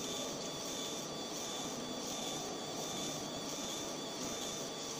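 Raycus 20 W fiber laser marking machine running while it engraves a photo onto a card: a steady whirring noise with a faint high-pitched whine.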